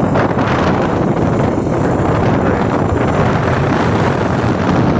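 Wind rushing over the microphone of a moving motorbike, a steady loud rush with the bike's running noise beneath it.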